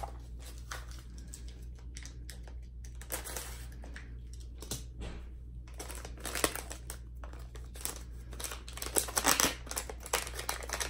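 Packaging of a makeup brush set being opened: irregular crinkling and crackling with some tearing, louder around six seconds in and again about nine seconds in.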